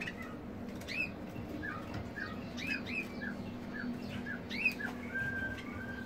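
European goldfinches in a cage calling: a run of short, quick chirps, about two a second, ending in a held whistled note.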